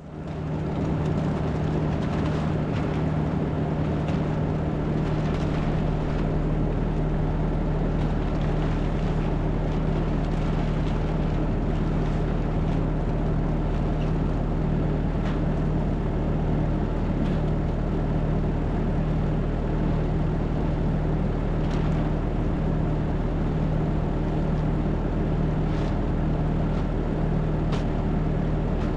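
A farm machine's engine running at a steady, unchanging speed, a constant hum, with a few faint clicks over it.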